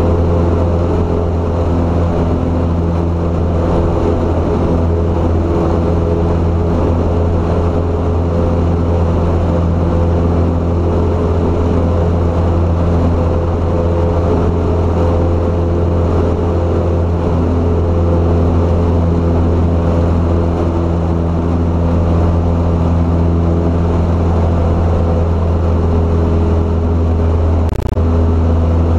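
Light single-engine propeller plane's piston engine and propeller droning steadily in flight, heard from inside the cabin. There is one brief click just before the end.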